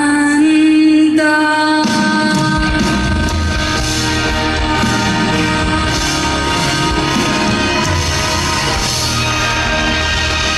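Live pop-rock performance: a sung note held for about two seconds, then the full band comes in with drums and bass and plays on.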